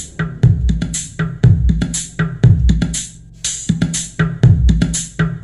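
Kingmax PA-1250 active speaker playing music: a steady drum-machine beat of about two strokes a second over deep bass.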